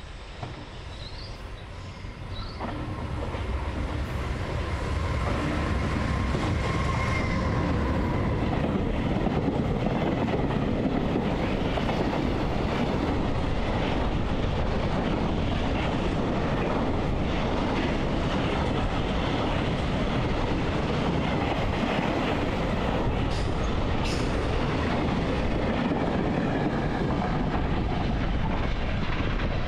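A loud, steady mechanical rumble that builds over the first five seconds or so and then holds.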